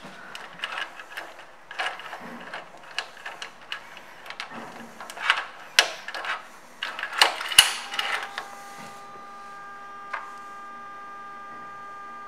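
Motorcycle ignition key and its tags rattling and clicking as they are handled in the switch. About eight seconds in, a steady hum with several tones starts and carries on.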